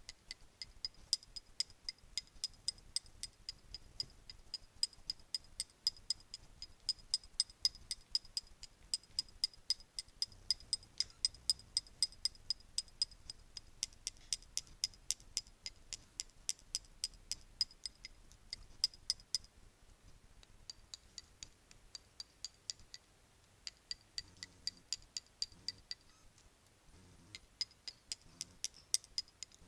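Bracelets being tapped in a steady run of sharp clicks, several a second, each with a short high ring, pausing briefly twice.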